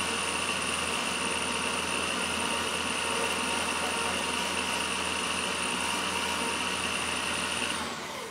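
Motor-driven cork reamer spinning while a cork foregrip is reamed out on it: a steady high whine over a rasping hiss. Near the end the motor is switched off and the whine falls away.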